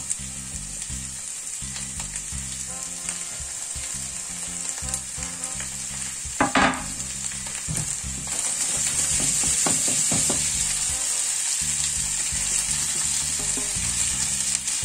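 Diced onion, carrot, bell pepper and potato sizzling as they fry in oil in a frying pan. A short knock comes about six and a half seconds in, and the sizzle grows louder from about eight seconds.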